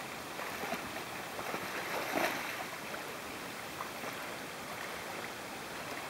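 Shallow river riffle running steadily, with a brief louder swell of noise about two seconds in.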